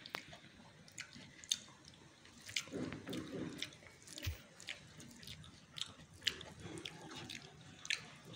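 Quiet sounds of eating by hand: fingers mixing and squishing rice and curry on a bell-metal plate, and chewing, with scattered small wet clicks.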